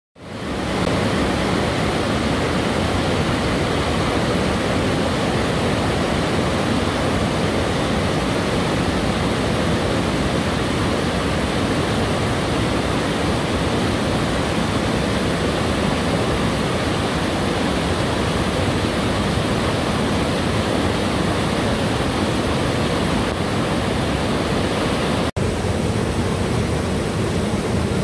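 Fast mountain river rapids rushing over boulders in small cascades: a loud, steady, dense rush of white water. It fades in over the first second and cuts out for an instant near the end.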